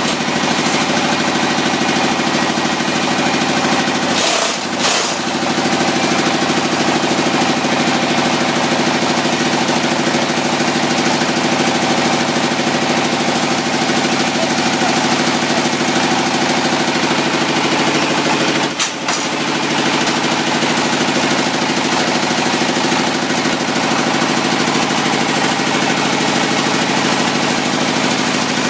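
Hydraulic concrete-block press running steadily, its power unit making an even mechanical drone that dips briefly twice, about four seconds in and again near nineteen seconds.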